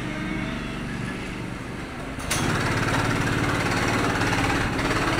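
Small gasoline go-kart engines running steadily at idle. A little over two seconds in there is a sharp click, and from then on the engine sound is louder and stays louder.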